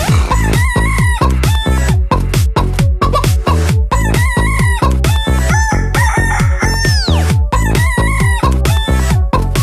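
Electronic dance beat with a steady kick drum about two beats a second, with rooster crowing and clucking heard over it.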